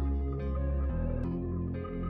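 Background music: a calm instrumental with sustained notes over a deep bass line, the chord changing a few times.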